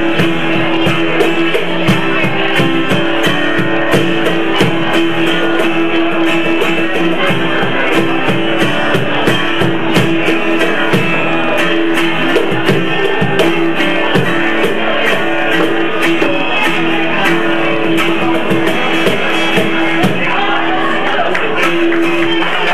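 Acoustic guitar strummed with hand drums keeping a steady beat, over a held note that rings throughout. The music stops right at the end.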